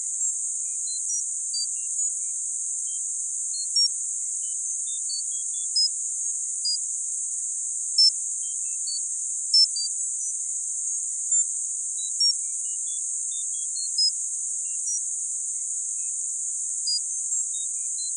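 Synthetic tinnitus sound-therapy audio: a steady, high-pitched hiss of filtered noise with short electronic tone pips scattered over it at random pitches, one or two a second.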